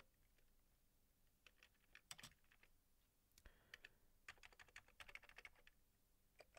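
Faint computer keyboard keystrokes: a few scattered taps, a short cluster about two seconds in, and a quick run of keys a little after four seconds.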